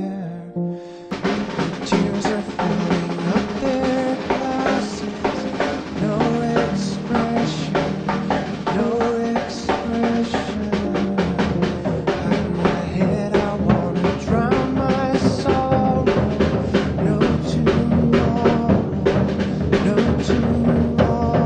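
Background music: a band track with a steady drum-kit beat of kick, snare and rimshot hits that comes in about a second in, over held pitched notes.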